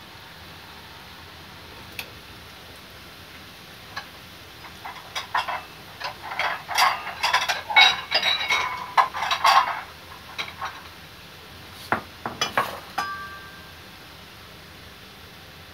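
Oil sizzling steadily around French fries frying in a pan. Over it, metal dishes and bowls clatter and clink from about four to ten seconds in, then again about twelve seconds in, ending with a bowl ringing briefly.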